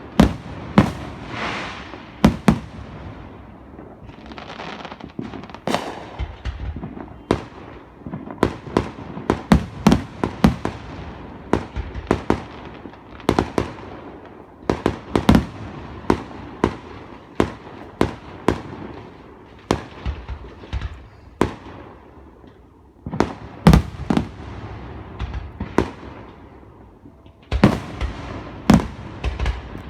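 Aerial fireworks show exploding in a rapid, irregular barrage of sharp bangs and crackles, many shells bursting close together with echoing tails, with the densest clusters of bangs near the end.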